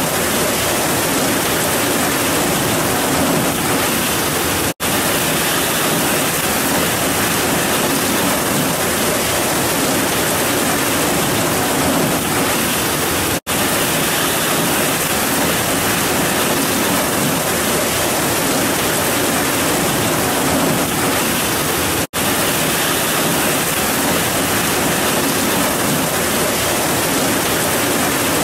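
Heavy rain pouring steadily on grass and trees, a dense, even hiss. It cuts out for an instant three times, at evenly spaced points.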